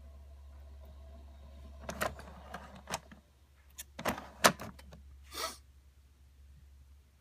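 A string of sharp plastic clicks and knocks from handling a Keurig 2.0 brewer, over a steady low hum. A short hiss or rustle follows a little after five seconds in.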